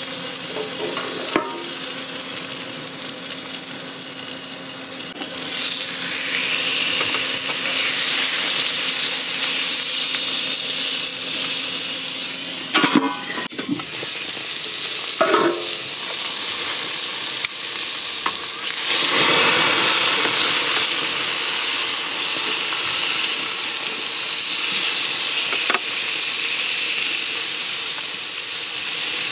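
Chicken breasts sizzling on the grates of a portable gas grill, a steady frying hiss with a few short clicks about halfway through.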